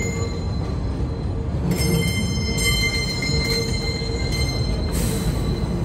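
R33/R36 'Redbird' subway cars rolling past on an elevated steel structure: a steady low rumble under a squeal of several high tones held together, with extra squealing tones about two to three seconds in and a short hiss near the end.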